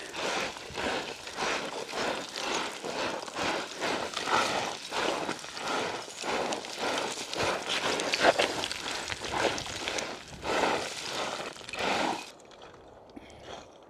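Hiking boots plunge-stepping quickly down a loose scree slope, each step crunching and sliding in the gravel at about two to three steps a second. The steps stop suddenly near the end.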